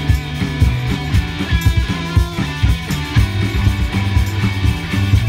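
Live rock band playing: electric guitars and bass over a drum kit keeping a steady beat.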